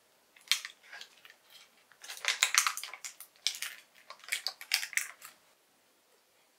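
Crisp crinkling and rustling of baking parchment wrapped around a cheesecake, in a string of short bursts that are loudest in the middle and stop about a second before the end.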